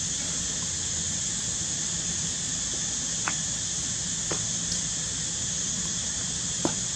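Steady high-pitched drone of an insect chorus, with three short clicks about three, four and six and a half seconds in. The last click is the loudest.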